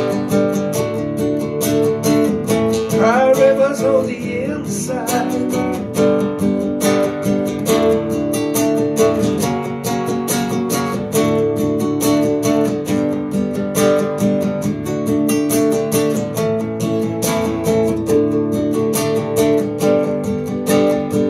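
Acoustic guitar strummed in a steady rhythm, playing an instrumental break in a song. A short wordless vocal glide sounds about three seconds in.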